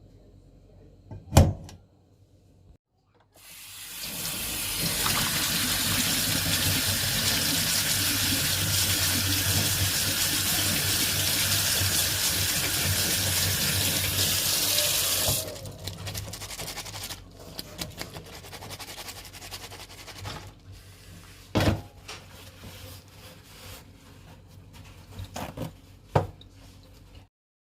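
Tap water running steadily into a sink for about twelve seconds, then shut off suddenly. A sharp knock comes before it, and quieter clatter with two more knocks follows.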